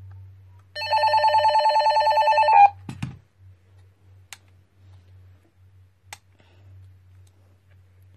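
Call tone from a toy PMR446 walkie-talkie's speaker: a loud pulsing electronic ring, about seven pulses a second, lasting about two seconds. It is followed by a dull thump and a few faint clicks as the radio is handled.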